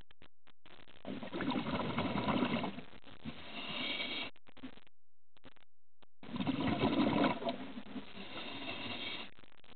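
Scuba diver's regulator breathing underwater, two breaths about five seconds apart. Each is a bubbling rush followed by a softer, higher hiss.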